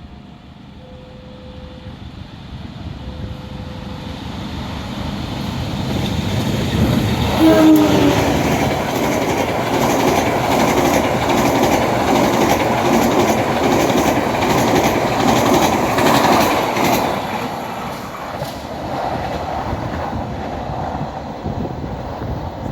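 A train approaching and passing through a level crossing, with the crossing's alternating warning tones near the start. The train's noise builds over several seconds, a short horn note sounds about seven seconds in, and rhythmic clicking of wheels over rail joints follows as the cars go by. The noise then eases off.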